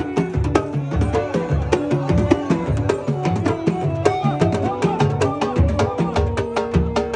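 Arabic folk-style music: a melody over a steady beat of deep drum hits and sharp, crisp percussion strokes.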